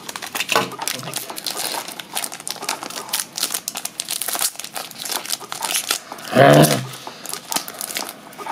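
Foil booster-pack wrapper of Pokémon trading cards crinkling as it is opened and the cards are pulled out, with many small crackles and rustles. A short voice sound stands out about six and a half seconds in.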